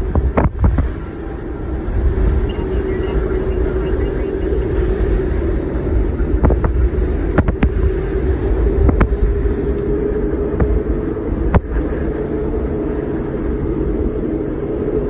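A Boeing 747's four jet engines run with a loud, steady low rumble and a constant hum. Jet blast buffets the microphone with wind noise and a few sharp pops.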